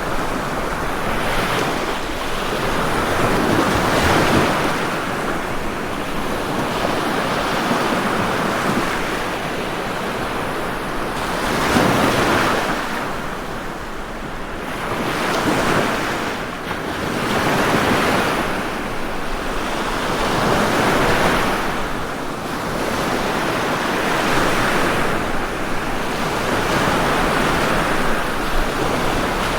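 Ocean waves breaking and washing on shore, a steady rush of surf that swells and falls back every few seconds.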